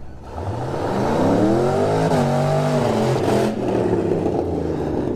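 Ford Ranger's swapped-in 4.8 L Vortec V8 under full-throttle acceleration on gravel, climbing in pitch for about two seconds with a brief dip, then falling as the truck passes close and fades, with tyres churning the gravel. It is a test run of the freshly tuned truck.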